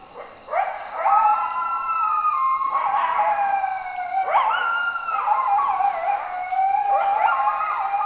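A pack of coyotes howling and yipping, several voices overlapping in rising and wavering calls, really close.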